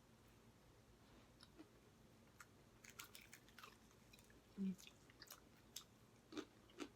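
Faint, wet chewing and lip smacks from people eating sauce-covered chicken legs, with scattered small clicks and a short low hum a little after the middle.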